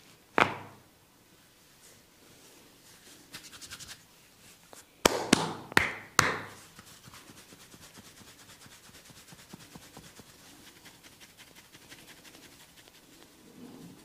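A single sharp crack about half a second in as the head is twisted to the side: a neck crack during a barber's head and neck massage. A quick run of light taps follows, then four sharp smacks in quick succession around five to six seconds in, and after them a faint rapid crackling as hands work through the hair.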